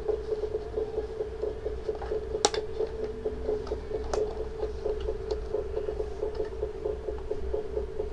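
Miniature electronic Jumanji game board's small speaker playing its repeating beating-drums sound, a steady hum with a pulsing throb under it. Two sharp clicks come through about two and a half and four seconds in.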